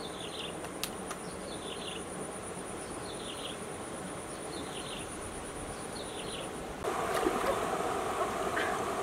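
Outdoor ambience: a steady high insect whine with a short chirping call repeated about every second and a half. About seven seconds in, these give way to the louder running and splashing of a shallow stream being waded.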